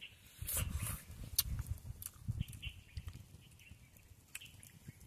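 A person slurping and chewing instant noodles, with wet mouth noises and small clicks, loudest over the first two seconds or so and then fading to faint chewing.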